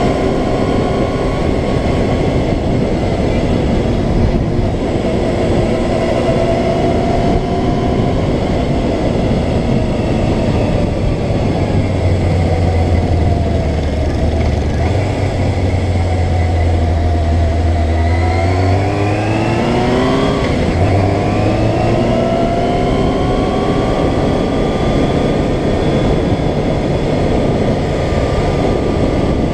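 Yamaha FZR600R's inline-four engine running under way, heard through heavy wind and road noise on the on-board microphone. The engine note climbs about two-thirds of the way through as the bike accelerates.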